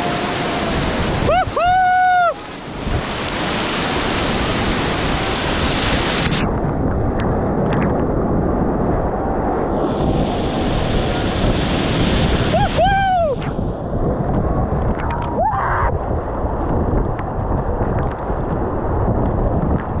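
Rushing river water and wind buffeting the microphone from a kayak on a fast, muddy river. Two brief high-pitched calls are heard, about two seconds in and again about eleven seconds later.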